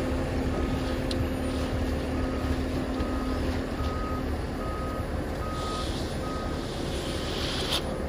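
Concrete mixer truck reversing: its back-up alarm beeps at a steady pace, a little faster than once a second, over the diesel engine running. A hiss comes in during the second half.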